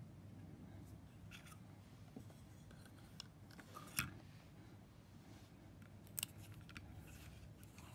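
A tape roll is fitted into a plastic Scotch C60 desktop tape dispenser, with a few sharp clicks and handling sounds. The loudest click comes about four seconds in, as the roll seats in the holder, and a quick double click follows about two seconds later.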